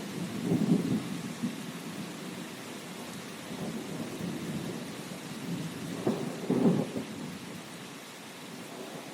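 Steady rain falling, with two low rumbles of thunder swelling up, one about half a second in and a stronger one around six seconds in.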